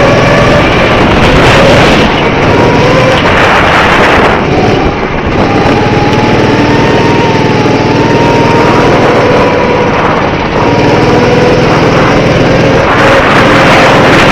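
Go-kart's small engine running under load, its whine rising about four seconds in and then holding, over a loud rushing noise.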